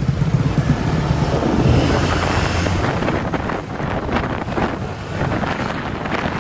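A vehicle travelling along a road: steady engine and road noise, with wind buffeting the microphone.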